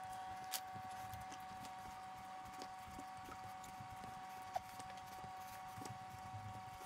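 Faint soft thumps and taps of bread dough being kneaded by hand on a plastic cutting board, over a steady faint hum, with an occasional sharper click.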